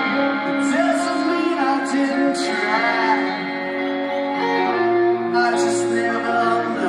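Live rock band playing, with electric guitars holding long notes under a sung lead vocal, heard from far out in the audience.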